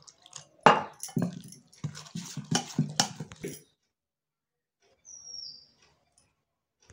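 Steel spoon scraping and knocking against a steel bowl as besan batter is stirred with water, a string of short clatters that stops about three and a half seconds in. About five seconds in, a single short high chirp falls in pitch.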